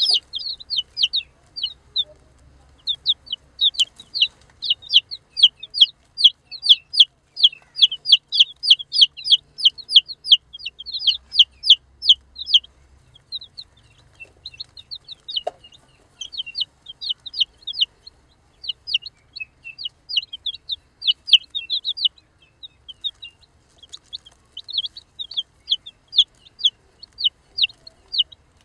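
Baby chicks peeping: a fast, continuous run of short, high chirps, several a second, with a couple of brief pauses.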